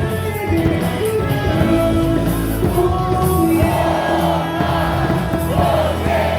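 Baseball stadium crowd singing and shouting a cheer song along with music over the ballpark loudspeakers.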